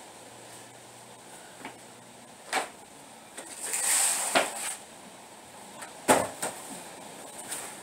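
A few sharp knocks and thuds, about two and a half, four and a half and six seconds in, the last the loudest, with a short rustling hiss around four seconds: goods being handled and set down while a minivan is unloaded.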